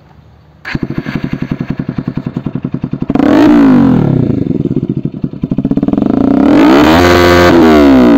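Bajaj Pulsar NS200's single-cylinder engine through a loud full-system aftermarket exhaust, idling with a pulsing beat from under a second in. It is revved twice: a short blip about three seconds in, and a longer rev held high near the end before dropping back.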